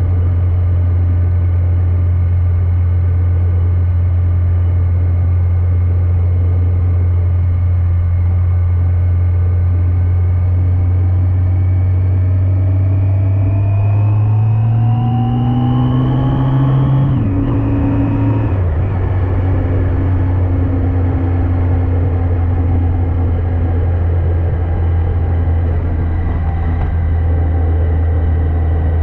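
Yamaha FJR1300AE's inline-four engine running at a steady cruise, with wind rush. About halfway through the engine note rises as the bike accelerates, then drops abruptly as it shifts up, and settles back to a steady cruise.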